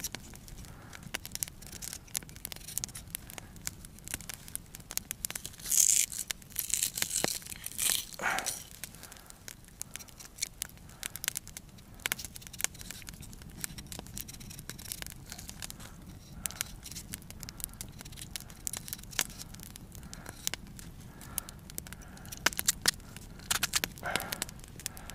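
A Finnish-style knife blade peeling a raw potato: a run of short, irregular scraping strokes as the skin is shaved away, with a few louder rasps about six and eight seconds in.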